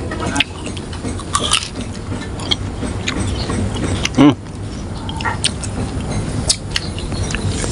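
Close-up chewing and crunching of crisp, juicy water apple and cucumber rujak, with irregular wet crackles of the bites. There is a brief voice sound about four seconds in.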